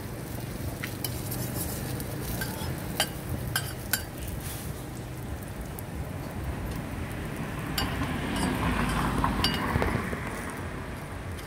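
Thai banana roti frying in oil on a flat steel griddle, with scattered light metallic clinks. About eight seconds in the sizzle grows louder for a couple of seconds as a metal spatula presses and turns the pancake.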